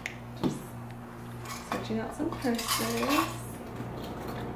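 Light clinks and knocks of things being handled on a table, among them a glass wine bottle and a purse's metal clasp. A short wavering hum comes in the middle, over a steady low hum.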